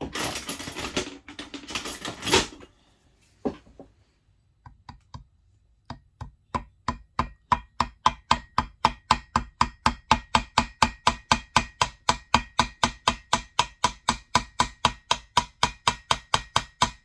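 A hand ratchet clicking in a fast, even rhythm of about five clicks a second, running the flywheel nut down onto the crankshaft taper of a McCulloch 1-85 chainsaw. Before it comes a couple of seconds of clattering and rustling as parts are handled.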